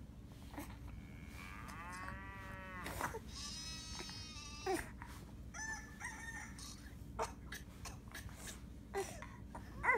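Farm-animal calls played through a tablet's small speaker from a children's video: a drawn-out moo-like call, then a higher bleating call and a few short calls.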